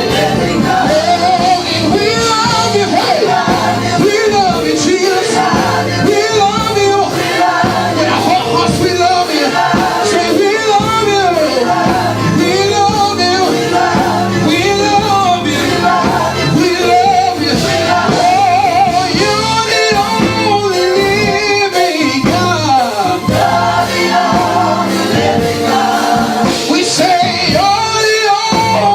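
Gospel worship song: voices singing over instrumental accompaniment with a steady beat.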